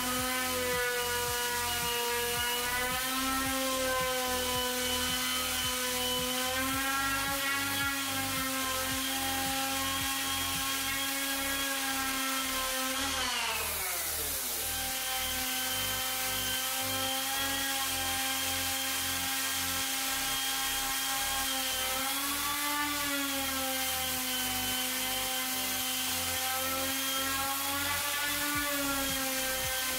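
Electric random orbital sander running on a wooden slab, a steady motor whine whose pitch dips and rises as pressure on the pad changes. About halfway through, the pitch sweeps sharply down before settling back to its steady running note.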